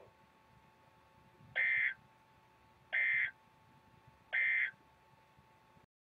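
Emergency Alert System end-of-message signal: three short bursts of digital SAME data tones, about a second and a half apart, marking the end of the broadcast alert.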